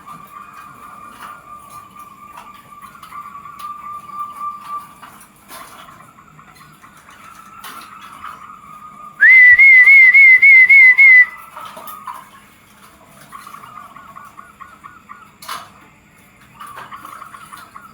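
Zebra doves (perkutut) cooing in quick trilled phrases, with one much louder, distorted trill about nine seconds in: a rising note followed by about seven fast pulses.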